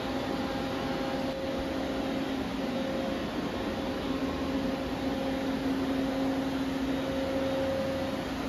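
Steady electrical hum of a powered-up Doosan Z290SMY CNC turn-mill standing idle: a constant low drone with a fainter tone above it and an even rushing noise, unchanging throughout.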